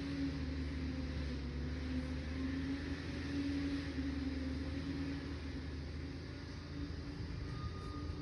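Liebherr PR 746 crawler dozer's diesel engine running under steady load, a low drone whose pitch wavers slightly and eases a little about six seconds in.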